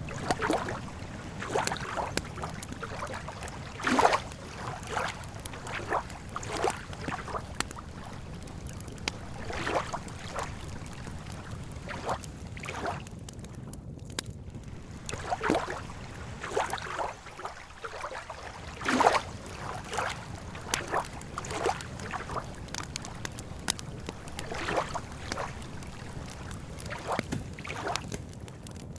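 Campfire crackling, with irregular sharp pops (two louder ones about four seconds in and near the middle) over a steady low wash, likely lake water lapping.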